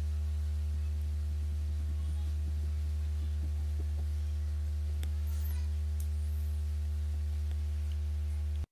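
Steady low electrical mains hum with a ladder of fainter overtones above it and a few faint clicks. The hum cuts off suddenly at the very end.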